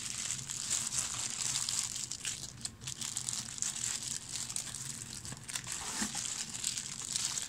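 Clear plastic bags of plastic miniatures crinkling and rustling as they are handled and pulled out of a box, a continuous crackly rustle.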